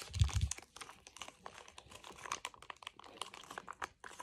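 Crinkling of a small plastic slime pouch being handled and picked at with fingers: many quick, irregular crackles. A few low thumps come near the start.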